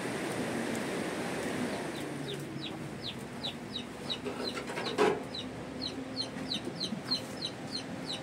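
A bird peeping: a steady run of short, high, falling peeps, about three a second, that starts about two seconds in. A hiss fades out before the peeps begin, and there is one sharp knock about five seconds in.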